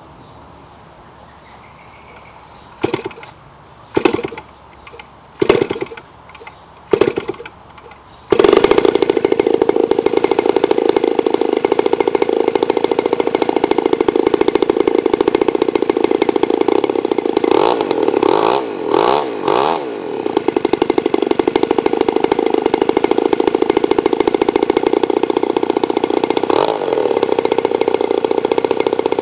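RCGF 60cc two-stroke gasoline model-airplane engine giving four short bursts as it tries to start, then catching about eight seconds in. It then runs steadily at idle, with brief rises and dips in speed while its idle setting is adjusted after being set too low.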